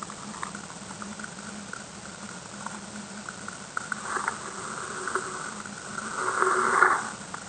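Underwater sound picked up by a submerged fishing camera: irregular clicks and crackles over a steady low hum, swelling louder about four seconds in and again near the end.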